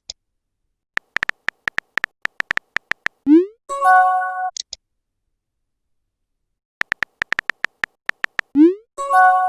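Messaging-app sound effects, twice over: a quick run of electronic typing clicks, a short rising swoosh, then a chime-like message tone with two high blips at its end. About two seconds of silence separate the two rounds.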